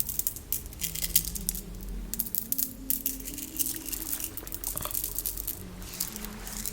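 A woman's soft humming of a slow, wandering melody, layered over squishy, crackling water sounds.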